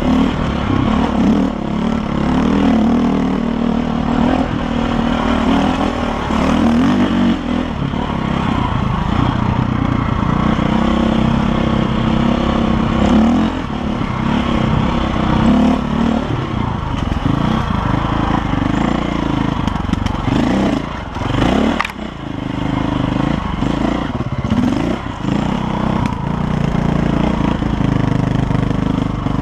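KTM dirt bike engine running under way on a loose sandy trail, the revs rising and falling with the throttle. The engine briefly drops off about two-thirds of the way through, then picks up again.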